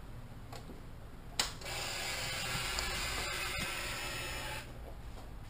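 Ducati 1199 Panigale S switched on: a sharp click, then about three seconds of steady electric whirring from the fuel pump priming at key-on.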